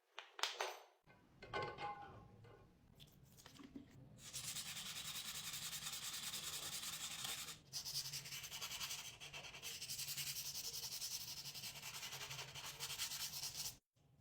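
Sanding: a steady scratchy hiss starts about four seconds in, breaks off briefly, and then runs on until it stops suddenly near the end. A few short scraping and knocking sounds come before it.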